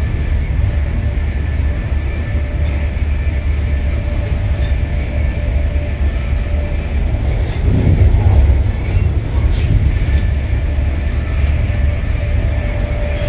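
Inside a passenger coach of an electric-hauled express running at high speed: a steady, loud rumble of wheels on rail with a few faint steady whining tones over it, growing louder for a second or two about eight seconds in.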